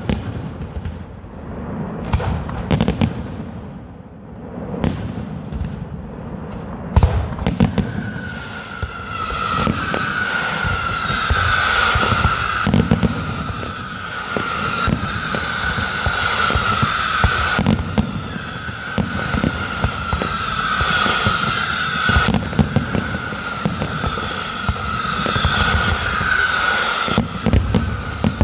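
Fireworks display: a rapid string of sharp bangs and crackles. From about eight seconds in, a high whistling tone repeats every couple of seconds, each one falling slightly in pitch, over continuing bangs.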